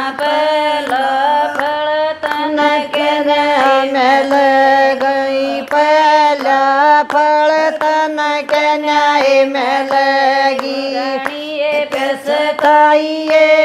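Women singing a Haryanvi devotional bhajan together, with rhythmic hand claps keeping time.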